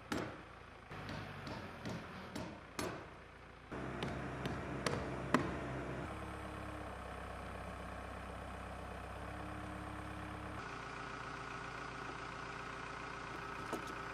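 Job-site sounds on a roof: a few sharp knocks for the first four seconds or so, then an engine running steadily for the rest.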